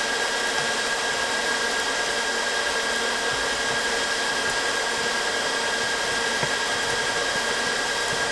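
Cooling fans of a 1U rackmount PCIe expansion chassis running steadily: a constant rushing hum with a high-pitched whine.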